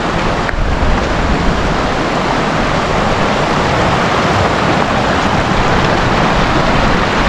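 Wind buffeting the microphone: a loud, steady rushing with rough, uneven low rumbling.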